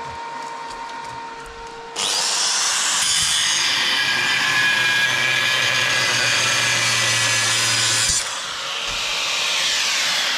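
Angle grinder starting up with a rising whine about two seconds in and running under load for about six seconds. It then runs lighter and begins to spin down near the end.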